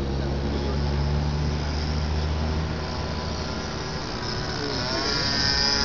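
Engine of a radio-controlled Cessna 182 model with a 20cc engine, flying overhead: a steady insect-like buzz whose pitch rises in the last second or so.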